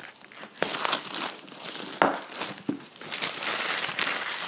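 Thin clear plastic bag crinkling and crumpling as it is pulled off a box and balled up in the hands, with a few sharper cracks among the rustle.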